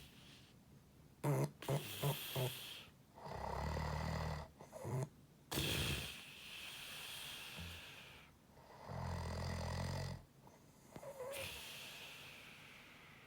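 Pig-like snoring of a sleeper: a quick run of short snorting pulses about a second in, then two long low snores several seconds apart, each followed by a breathy exhale.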